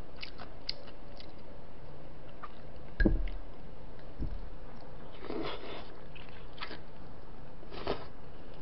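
Close-miked eating sounds: chopsticks clicking lightly against bowls while soft braised chicken and rice are picked up and chewed, with short squishy smears of chewing. A dull thump about three seconds in, with a softer one just after, is the loudest sound.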